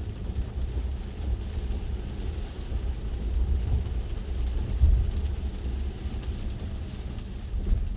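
Low, steady road and tyre rumble heard inside a Tesla Model 3's cabin as the car drives slowly on wet pavement.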